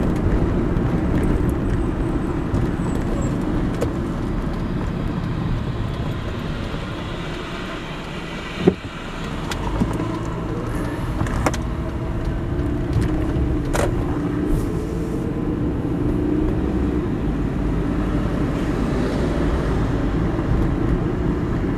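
Steady road and engine noise heard from inside a moving car, with a sharp knock about nine seconds in.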